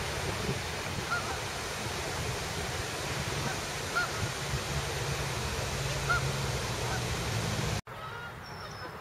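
Steady rushing noise with a low rumble under it, and a few short honking calls of waterfowl scattered through it. The rushing noise cuts off abruptly near the end, leaving a quieter background with a faint call or two.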